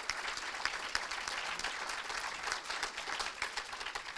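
Audience applauding: a room of people clapping steadily, thinning out near the end.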